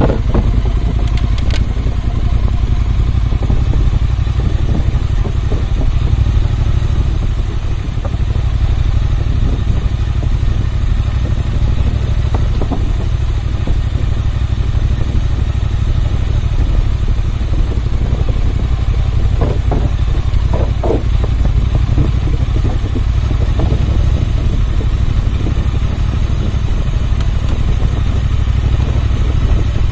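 Motorcycle engine running steadily at low speed while the bike is ridden slowly, as a continuous low rumble. A few brief clatters come about two-thirds of the way through.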